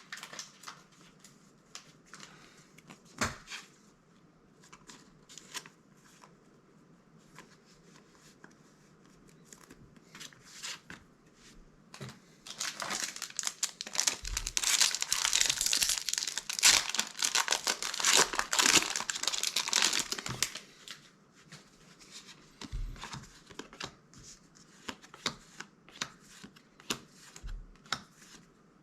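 Foil wrapper of a Magic: The Gathering booster pack crinkling and tearing open, dense and loud for about eight seconds in the middle. Soft scattered clicks and taps of cards being handled come before and after it.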